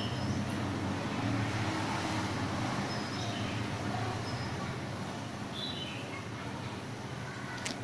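Steady low hum under a noisy hiss, with a few faint short high chirps, and one sharp click near the end.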